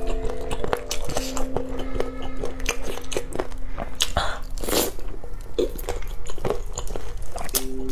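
Close-miked biting and chewing of crunchy food: a dense run of sharp, irregular crunches and crackles. Soft background music holds low notes underneath, mostly in the first half.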